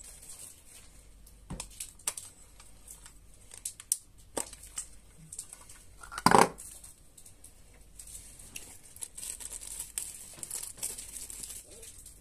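Handling noise from a small plastic action camera: scattered clicks and scratchy rustles as a microSD card is taken out of it, with one louder short noise a little past the middle.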